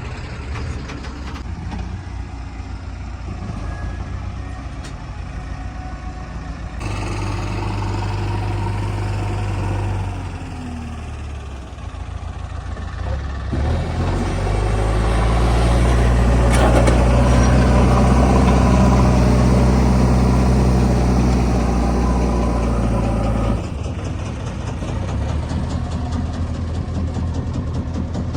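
Diesel engine of a JCB 3DX backhoe loader running steadily, rising to a harder, louder pitch under load for a long stretch in the middle as it works.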